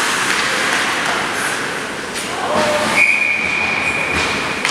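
Hockey referee's whistle blown once near the end and held for about a second and a half, stopping play after a scramble at the net. Before it there is the steady noise of an ice rink in play, with skates and players.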